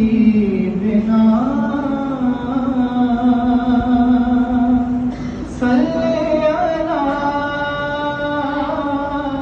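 A man singing an Urdu naat solo with no instruments, holding long drawn-out notes that step in pitch, with a short break for breath about five seconds in.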